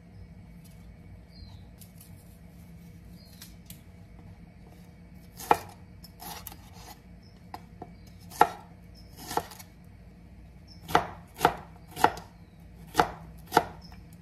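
Chef's knife chopping green chili peppers on a wooden cutting board: sharp, irregular knocks of the blade on the board, starting about five seconds in and coming faster near the end.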